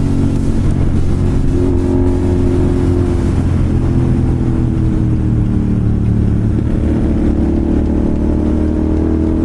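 Royal Enfield Continental GT 650's parallel-twin engine through an aftermarket slip-on exhaust, running at a steady cruise, its pitch easing down slightly in the second half.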